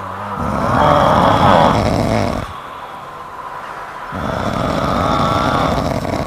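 A cat snoring: two long snoring breaths of about two seconds each, with a quieter pause between them.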